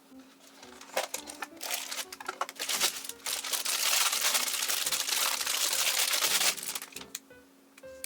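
Crinkly wrapping material being handled and crumpled, with rapid crackles, starting about a second in and dying away shortly before the end. Soft background music plays underneath.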